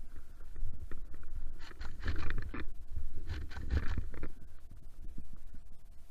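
A low rumble of handling noise, with two rustling, scraping bursts about a second long each, one about two seconds in and one about three and a half seconds in.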